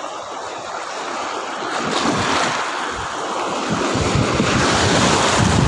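Small waves breaking and washing in at the shoreline, swelling about two seconds in and again near the end, with wind buffeting the microphone.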